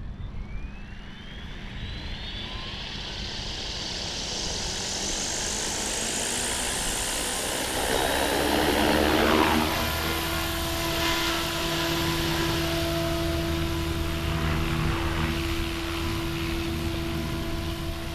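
XLPower Protos 380 electric radio-controlled helicopter spooling up with a rising whine, then flying with a steady rotor and motor drone; it is loudest in a pass around eight to ten seconds in.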